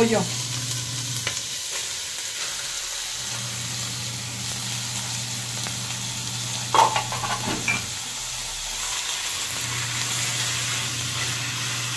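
Diced chicken breast sizzling in hot oil with sliced onions in a stainless steel pot while a spoon stirs through it, with a brief clatter about seven seconds in.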